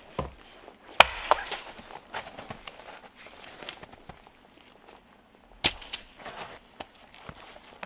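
Dead branches snapping and cracking as they are broken off fallen deadwood, with crunching steps in snow between. There are two sharp cracks about a second in, the first the loudest, and another just before six seconds.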